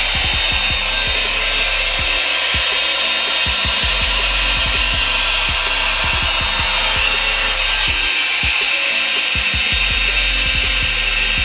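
Revlon hot-air brush dryer running steadily on its high setting: a loud, even rush of blown air with a thin high whine from its motor.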